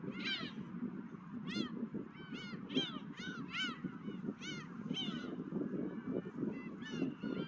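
Gulls calling repeatedly, short arched cries about one or two a second, over a steady low rush of wind.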